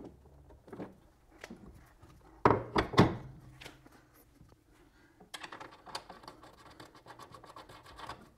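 Metal suspension parts and hand tools being worked on a car's lower control arm: scattered light clicks, a few heavy knocks about two and a half to three seconds in, then a run of fast, light clicks from about five seconds in.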